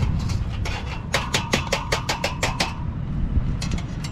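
Metal tongs clicking against a wire charcoal grill: a quick, even run of about ten metallic clicks lasting a second and a half, with a faint ring, over a steady low rumble.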